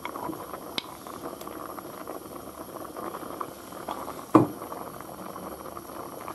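Chickpeas boiling in a stainless steel pot, a steady bubbling. There are a few light clicks, and one brief knock about two-thirds of the way through.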